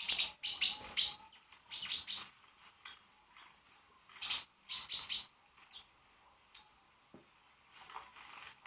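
Small birds chirping in quick, high-pitched bursts, in several short clusters with pauses between.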